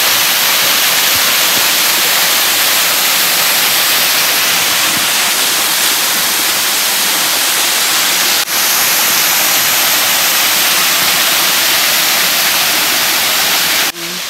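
Waterfall: a loud, steady rush of falling water, with a momentary break about eight seconds in.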